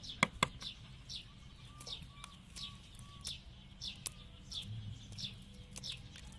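A small bird calling over and over with short, high, falling chirps about every two-thirds of a second, with a few lower short notes in between. Two sharp clicks sound just after the start.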